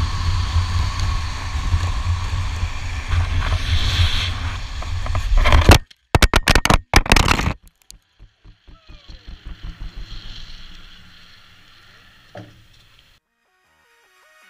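Wind and wheel roar rushing past a pole-mounted camera on a fast downhill longboard run, then about six seconds in a burst of hard, clipping impacts as the rider crashes and the camera hits the pavement. After it comes a run of quick, evenly spaced scrapes that swell and fade.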